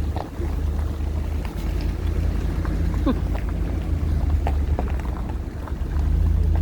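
Steady low rumble of a vehicle driving slowly, with wind buffeting the microphone.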